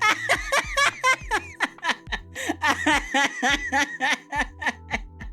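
A woman laughing hard in a long run of rapid, high-pitched bursts, over quiet background music.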